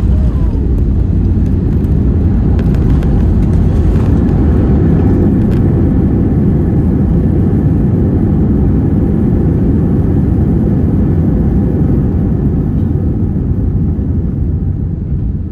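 Airbus A319's CFM56-5B turbofan in reverse thrust under full braking on the landing roll, heard from inside the cabin right beside the engine: a loud, steady low rumble that eases off slightly near the end.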